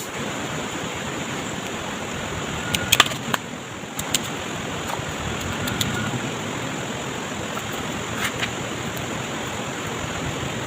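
Water running steadily, an even rushing hiss, with a few sharp clicks about three and four seconds in and again near eight seconds.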